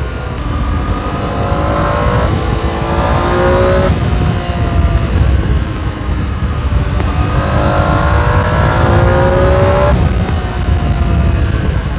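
Triumph Tiger 800 XRx's inline three-cylinder engine through its stock exhaust, heard from a helmet camera while riding. The pitch climbs through two long accelerations, each cutting off suddenly: about four seconds in, and again near ten seconds.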